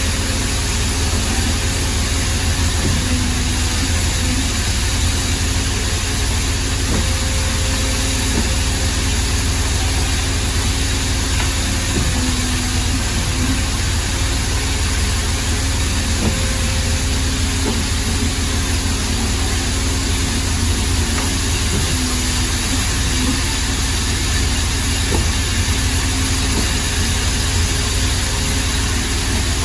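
Steady machine hum from a powered-up CNC tube bender: a low drone with two steady tones that shift slightly in pitch now and then.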